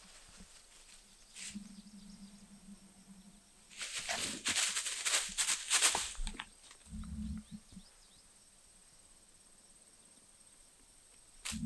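Dry fallen leaves rustling and crackling as a squirrel scurries across the forest floor. The main burst of crunching lasts about two seconds, near the middle, with lighter scattered crackles around it.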